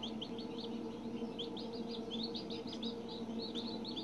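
Newly hatched chicks peeping: short, high peeps, several a second, over a steady low hum.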